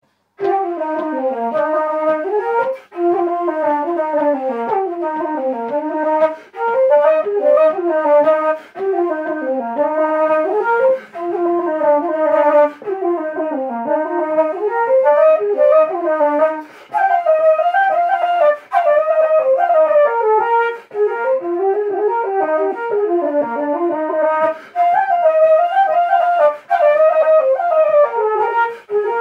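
Two B-flat wooden flutes played together in a lively jig, a quick running melody with short breaks every few seconds.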